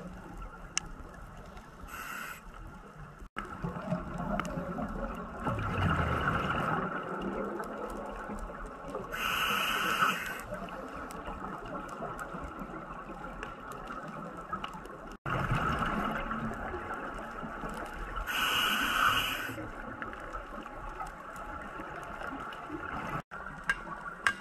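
Scuba diver breathing through a regulator underwater. Exhaled bubbles rumble out twice, and each is followed a few seconds later by the hiss of an inhalation through the demand valve.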